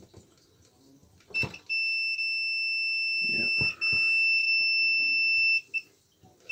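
Multimeter continuity buzzer: a steady high beep held for about four seconds with a brief break in the middle, with short chirps just before and after it and a few handling knocks. The tone signals continuity through the hammer drill's switch.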